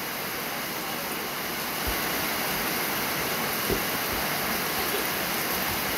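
Rain falling steadily on a wet yard, a constant rushing hiss, with water pouring off a roof edge. A few dull low thumps come through, about two and four seconds in.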